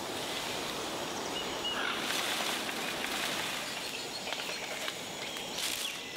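Rainforest ambience: a steady hiss of forest noise with a couple of short high bird chirps about a second and a half in. A few light crackles come near the end, from footsteps in dry leaf litter.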